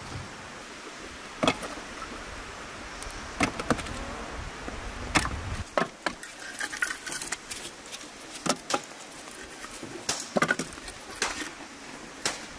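Split firewood pieces knocking against one another as they are stacked by hand on the ash bed of a brick clay oven: a dozen or so sharp wooden clacks at irregular intervals over a steady background hiss.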